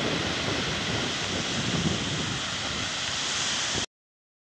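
Small waves washing onto a stony shingle beach, with wind rumbling on the microphone. It cuts off suddenly to silence near the end.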